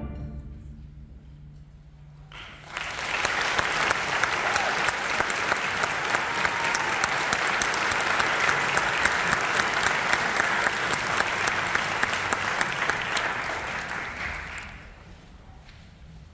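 A school concert band's final chord dying away in the hall's reverberation, then audience applause starting about two and a half seconds in, holding steady for some twelve seconds and fading out near the end.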